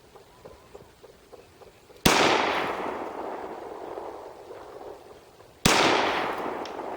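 Two shots from a Ruger P95 9mm pistol, about three and a half seconds apart, each followed by a long echo that dies away.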